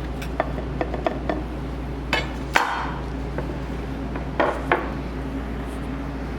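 Plates and utensils clinking and knocking: about eight separate short strikes, over a steady low hum.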